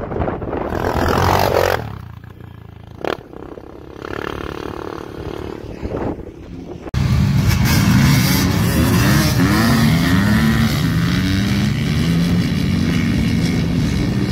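A Yamaha Raptor 700 quad's engine revs up as it comes down the dune and then fades away. About halfway through, the sound cuts to several dirt bikes and quads, among them a two-stroke Yamaha YZ250, all running and revving together at a start line, loud and overlapping.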